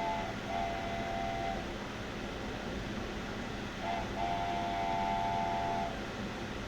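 Steam-train whistle sounding twice, each time a short toot followed by a longer held chord of several steady notes, over a steady background hiss.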